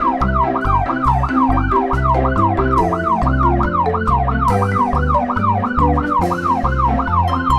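A fast yelping siren, its pitch sweeping up and down about three times a second, over background music with a pulsing bass line.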